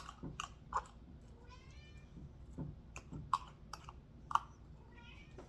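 A cat meowing twice: one longer call about a second and a half in and a shorter one near the end, between a string of small sharp clicks and taps.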